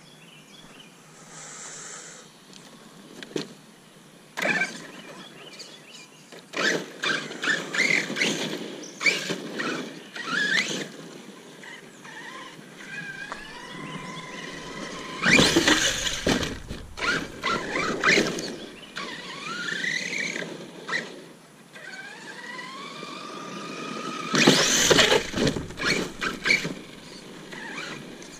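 Brushless electric motor of a Redcat Landslide XTE 1/8-scale RC monster truck whining up and down in pitch as it accelerates and slows, with tyres scrabbling on dirt and gravel. There are two louder noisy stretches, about halfway and near the end.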